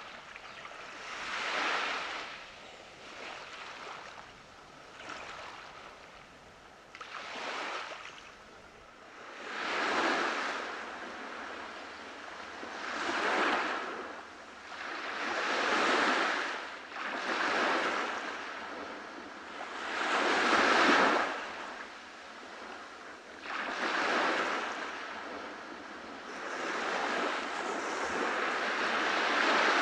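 Waves breaking and washing up on a beach, a fresh surge every two to three seconds, each swelling and then falling away.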